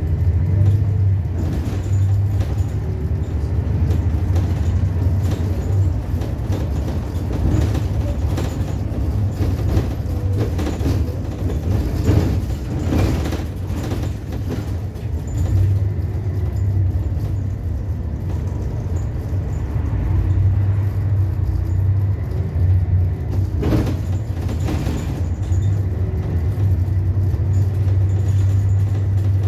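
Bus engine and running noise heard from inside the bus as it drives: a steady low drone that rises and falls in pitch with the gears, with a few rattles and knocks from the body.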